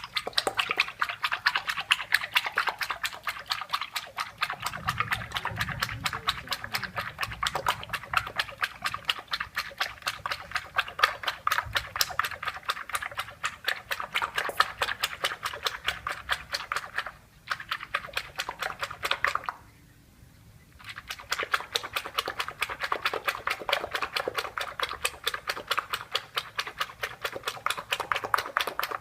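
Rapid, even tapping of a kitchen utensil during food preparation, several strokes a second. It breaks off briefly twice in the second half.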